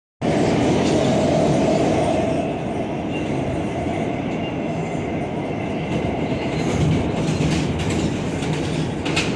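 New York City subway train running, heard from inside the car: a steady rumble of wheels on track. A whine fades out about two seconds in, and some sharp clicks come near the end.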